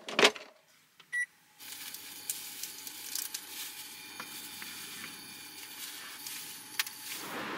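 A thump as the lid of a portable car fridge shuts, then one short electronic beep about a second in. After that comes a steady low hum with faint scattered clicks.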